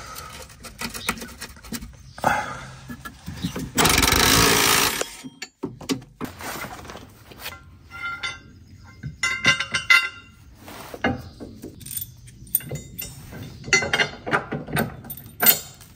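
3/8-inch cordless ratchet working seized, rusty bolts under a van, with a loud burst about four seconds in and shorter bursts later, between rattling metal clicks and clinks of the tool and fixings.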